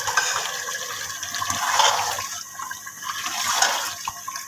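Steel ladle stirring chicken pieces into wet, mashed turnip gravy in a pressure cooker pot: wet sloshing and squelching, with two louder swells.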